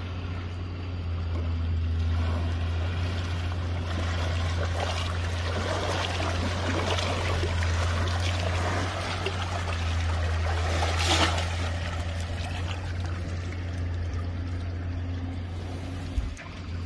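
Asian elephant wading through a shallow river, the water splashing and sloshing around its legs and trunk, with a sharper splash about eleven seconds in. A steady low hum runs underneath.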